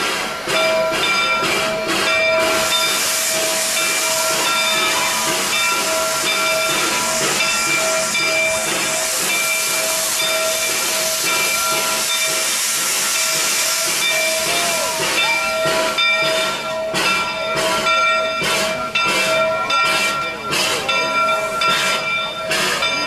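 Steam locomotive hissing loudly as steam blasts from its open cylinder cocks, with steady pulsing tones beneath. In the last several seconds a run of sharp exhaust puffs comes through as it works.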